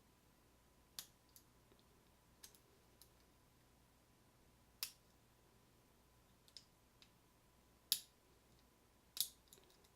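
Scattered sharp little clicks of a lock pick and tension wrench working the pins in a Schlage deadbolt's keyway, about ten in all at irregular intervals. The loudest comes near eight seconds in.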